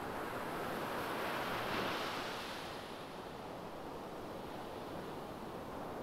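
Small ocean waves breaking and washing up a sandy beach. The surf swells to its loudest about two seconds in, then eases off.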